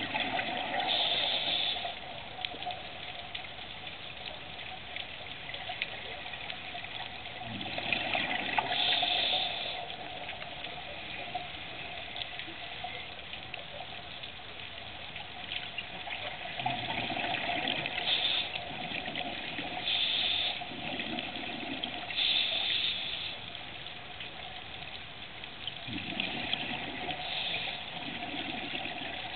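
Scuba regulator breathing underwater: hissing inhalations alternate with bubbling exhalations over several breath cycles.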